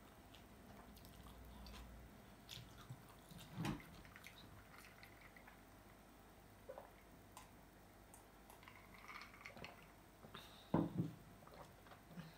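Quiet close-up eating sounds: chewing and mouth smacks while eating fish-sauce fried chicken wings, with sipping and swallowing of a cold milk tea. A louder smack or gulp comes a few seconds in, and a pair of louder ones comes near the end.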